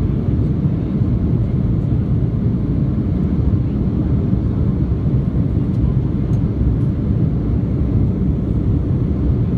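Steady low rumble inside an airliner cabin as it climbs after takeoff: jet engine and airflow noise, even and unbroken.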